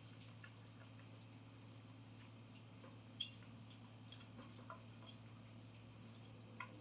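Faint clicks and taps of small parts being handled while a thumb screw is fitted to a light's mounting bracket, with one sharper click about three seconds in and another near the end, over a low steady hum.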